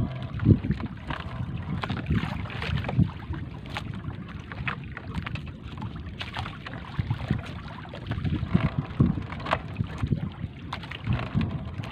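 Wet three-ply fishing net being hauled by hand over a boat's wooden side: water splashing and dripping off the mesh, with irregular soft knocks and wind buffeting the microphone.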